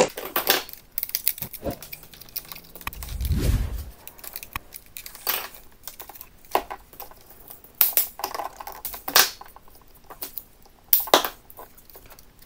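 Scattered small clicks, taps and rustles of hands handling electrical wires and a plastic socket mounting frame, as a blue wire with a crimped ferrule is pushed into a USB socket's terminal. A brief low rumble comes about three seconds in.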